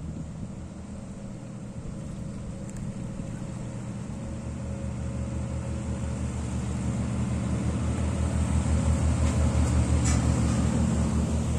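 Inland cargo barge's diesel engine running with a low, even pulse, growing louder as the stern and engine room pass close beneath.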